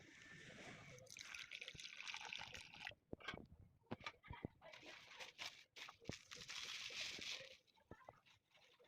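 Liquid pouring and sloshing in two stretches, separated by a few light clicks and knocks.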